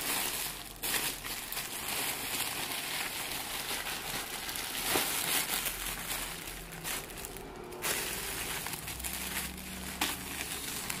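Plastic courier mailer bag crinkling and rustling as it is handled and lifted, a continuous run of rustles with short sharper crackles.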